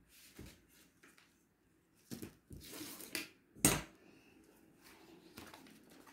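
Sewing tools (metal scissors, a steel ruler, a tape measure) being handled and set down on a fabric-covered table: a few scattered knocks and light metallic clinks with a brief rustle between them, the sharpest knock a little past halfway.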